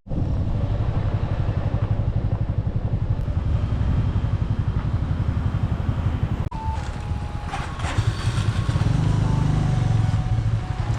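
Motorcycle engine running steadily under way, with a low even pulse, heard close from the moving bike. About six and a half seconds in there is a brief cut, after which a few faint steady tones sound over the engine.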